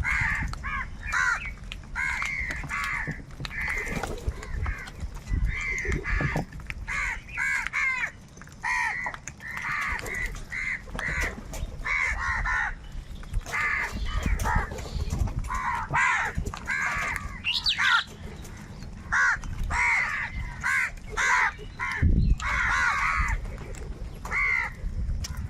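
Many crows cawing, short harsh calls following and overlapping one another without a break.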